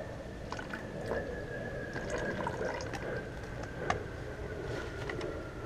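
Flush water draining out of a Yamaha YZF-R6's disconnected coolant hose and splashing into a plastic bucket, with scattered drips: the cooling system being flushed during a coolant change.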